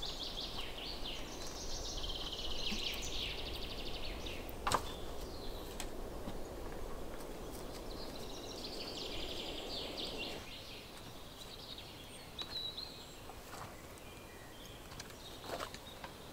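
Songbirds chirping and trilling in two spells, over a steady low background noise that cuts off abruptly about ten seconds in. A single sharp knock or snap about five seconds in.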